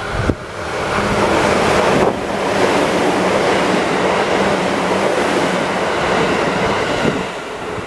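JR West 221 series electric train running through the station at speed without stopping: a loud rush of wheels and air that starts about half a second in and falls away near the end.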